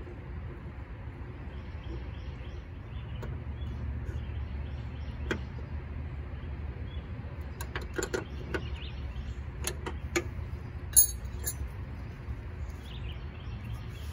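Scattered light metallic clicks and clinks of hand tools on brake line fittings as a new brake line is fitted at the wheel. The sharpest clink comes about eleven seconds in, over a steady low background rumble.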